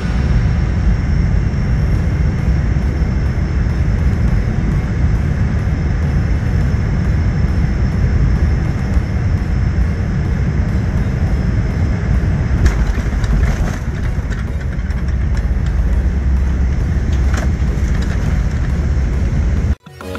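Steady low rumble inside an airliner cabin, the mix of engine and airflow noise, with a few faint knocks in the second half; the sound cuts off abruptly near the end.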